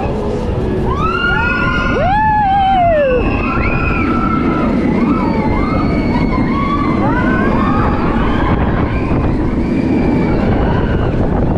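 Suspended roller coaster in motion: a steady rush of wind and track rumble, with riders screaming and whooping in rising and falling cries, the loudest about two seconds in.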